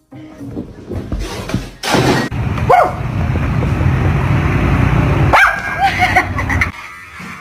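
A dog barking and yelping, loudest from about two seconds in to nearly seven, with short high yelps near the start and end of that stretch.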